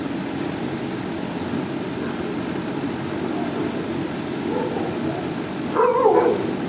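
Steady background hum in a dog kennel. About six seconds in, a dog begins vocalizing with a short, loud bark that wavers in pitch.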